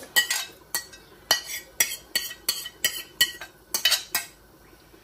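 A metal spoon stirring in a cooking pot, clinking and knocking against its sides about fifteen times in an irregular rhythm.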